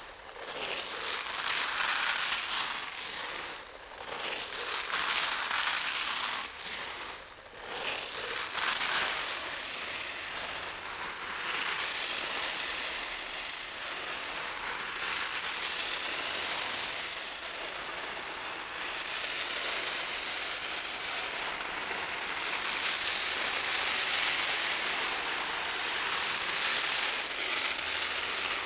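Rice grains pouring in a thin stream from a swinging pendulum cone onto rice paper, a dense crackling patter like rain on a surface. The patter swells and dips several times in the first eight seconds, then settles into a steadier hiss.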